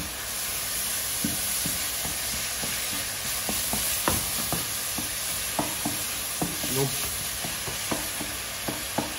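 Sofrito of peppers, onion and tomato sizzling in oil in a stainless steel sauté pan over high heat, the tomato breaking down to pulp. A wooden spoon stirs it, with frequent short, irregular knocks and scrapes against the pan.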